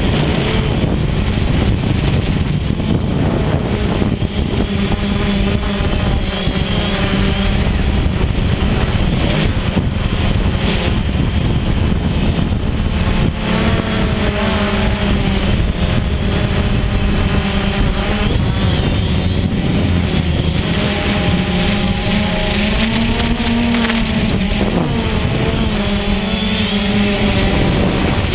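DJI Phantom quadcopter's motors and propellers buzzing steadily, heard from the camera mounted on the drone, the pitch wavering up and down as it manoeuvres.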